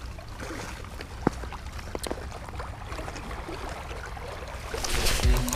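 Small lake waves lapping against a rocky shoreline, with a few light clicks about a second and two seconds in. A louder rushing sound builds near the end.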